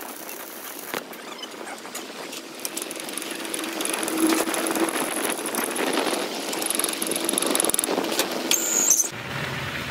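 Metal lathe turning a weld-built-up splined pinion shaft, the cutting tool scraping steel off the weld bead with scratchy, clicking cutting noise. It opens with about a second of arc-welding crackle, and near the end the sound gives way to a steadier low hum.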